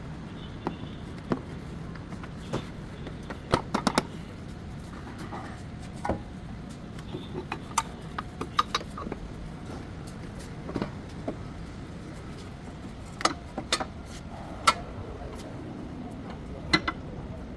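Scattered sharp metallic clicks and knocks from hand tools and parts being handled during work on a car's front axle, some in quick pairs, over a steady low background.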